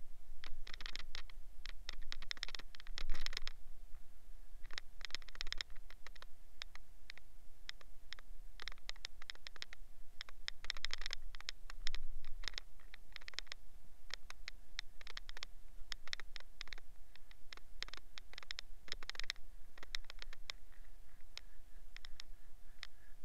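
A soapy sponge scrubbing a tyre and its steel wheel rim by hand, in bursts of quick scratchy rubbing strokes with short pauses between. A faint steady hum runs underneath.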